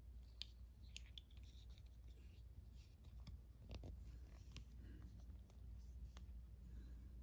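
Faint handling sounds of an Apple AirTag being pressed into a soft silicone keyring holder: a few small, irregular clicks and light rubbing of plastic against silicone, over a low steady room hum.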